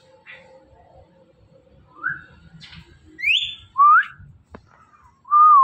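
Indian ringneck parrot whistling: four short whistles, each gliding up in pitch, the last wavering before it rises.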